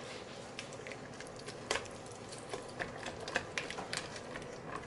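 Waffle batter being stirred in a stainless steel mixing bowl, the utensil giving irregular light taps and clicks against the bowl's side.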